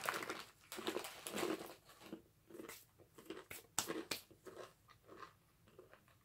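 Chewing and crunching a mouthful of Takis rolled tortilla chips close to the microphone: irregular sharp crunches that thin out and grow fainter toward the end.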